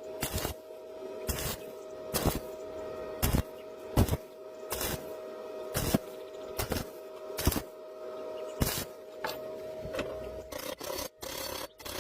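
Repeated rasping strokes, about one a second, of a hand tool scraping or filing metal, over a faint steady tone.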